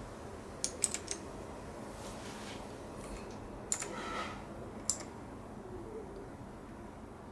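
Keys being pressed on a TiROND T10 computer keyboard: a quick run of about four clicks about a second in, then two single clicks a few seconds later, over a steady low hum.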